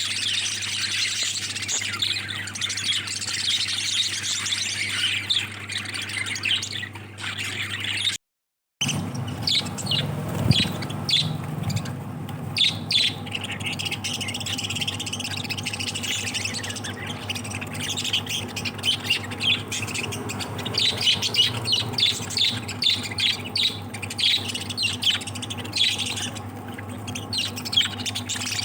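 A flock of lovebirds chattering and squawking, many short overlapping calls at once, over a steady low hum. The sound breaks off for about half a second some eight seconds in, then the chatter goes on.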